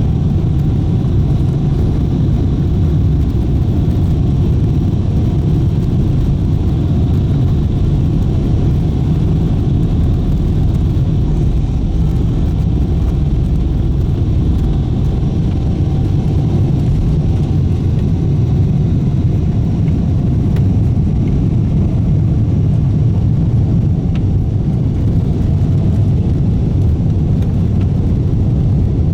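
Boeing 777-300ER's GE90 turbofan engines and airflow heard inside the cabin under takeoff power: a steady, deep rumble with a faint hum above it.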